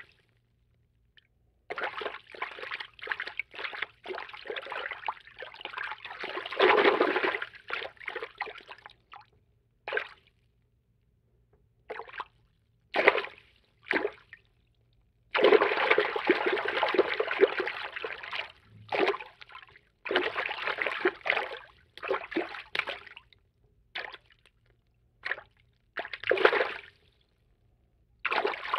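Cartoon water-movement foley: a string of separate sound-effect clips of water moving and splashing, some under a second and some a few seconds long, with dead silence between them.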